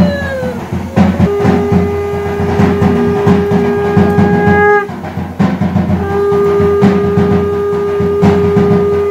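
Conch shells blown in long held notes, the first falling in pitch as it dies away just after the start, the next two each held for several seconds, over steady drumming during the puja's prayer.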